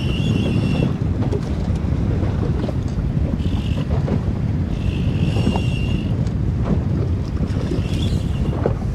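Wind buffeting the microphone, with waves slapping against the boat. Four short high-pitched whines come through: one right at the start, two around the middle and one near the end.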